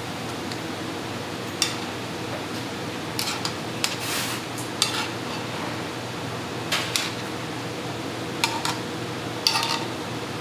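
Metal tongs and a pan clinking and scraping while sliced beef and onions are served from the pan onto a rice bowl: about a dozen sharp, separate clinks at uneven intervals over a steady background hum.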